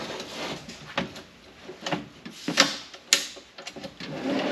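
Sharp metallic clicks and clunks, with rattling between them, from an aluminium-boxed fridge slide and tilt mount being worked by hand.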